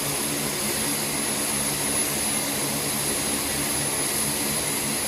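WC-130J Hercules turboprop engines running on the ground: a steady drone from the six-bladed propellers with a constant high-pitched turbine whine over it.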